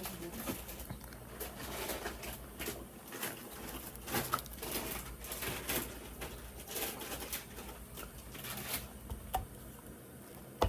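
Eating sounds at a table: scattered small clicks, crackles and rustles of raw shrimp being handled and chewed.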